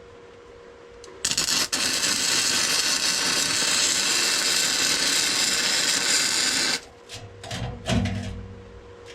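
MIG welder arc laying a weld bead on bare steel: a steady crackling hiss that starts just over a second in, stutters once, then runs for about five seconds and cuts off sharply as the trigger is released. A faint steady hum sits underneath.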